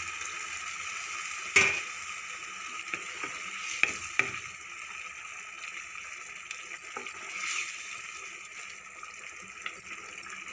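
Water poured from a steel bowl into a pan of bottle gourd and chana dal curry, then stirred in with a wooden spatula. A sharp knock comes about a second and a half in, with a few lighter clicks after it.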